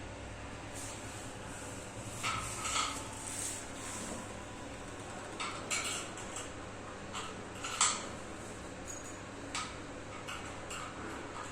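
Scattered light metallic clinks and knocks, about a dozen of them at uneven intervals, the sharpest about eight seconds in: plumbing tools and brass fittings being handled during a fitting installation. A steady low hum runs underneath.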